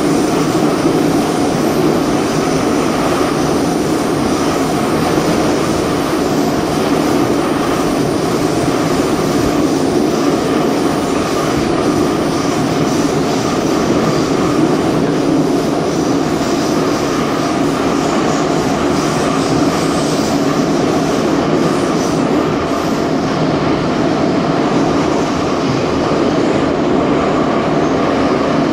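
1974-built Soviet Ezh3 metro train running at speed through an underground tunnel between stations, heard from inside a carriage: a steady, loud noise of wheels on rails and running gear.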